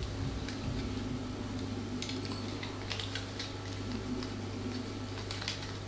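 Ryobi Excia spinning reel with its handle being cranked, the rotor turning with a faint, smooth whirr, a sign of soft, good winding action. A few light clicks of the reel being handled come about two, three and five and a half seconds in.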